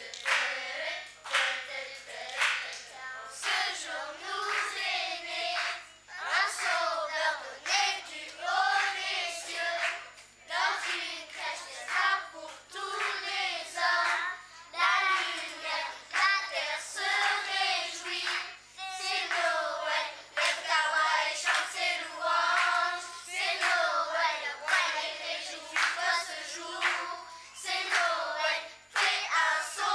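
Children's choir singing a song together, with frequent sharp percussive hits running through it.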